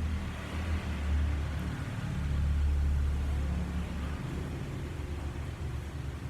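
Soft rubbing and rustling of a cloth wiping a wet plastic gum case dry, over a steady low rumble.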